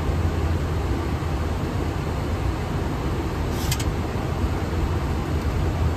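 Steady flight-deck noise of a Boeing 737-800 in flight: a low hum under a constant rush of air, with one brief high-pitched tick a little past halfway.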